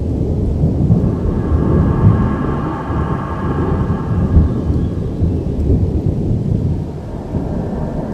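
Thunder rolling in a long, continuous low rumble that swells and ebbs without a sharp crack.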